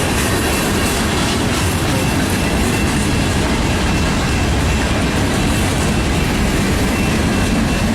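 Long CN freight train's cars rolling steadily past at slow speed, with a continuous rumble of steel wheels on the rails.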